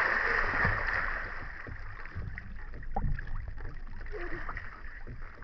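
A big splash in swimming-pool water, fading over the first second or so into lighter sloshing and scattered drips.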